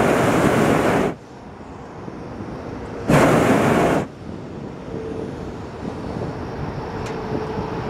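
Hot-air balloon's propane burner fired in two short blasts, each about a second long and about three seconds apart, a loud rushing blast; a quieter steady rush of air fills the gaps.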